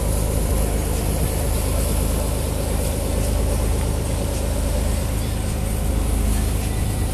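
Excursion boat's engine running steadily while under way, a constant low hum, with the rush of water along the hull.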